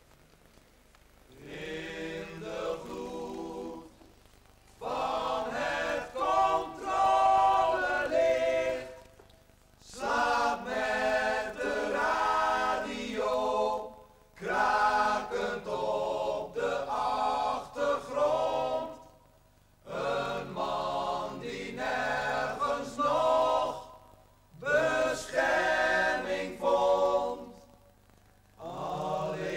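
A group of men singing together a cappella, in phrases of about five seconds with short breaks between them.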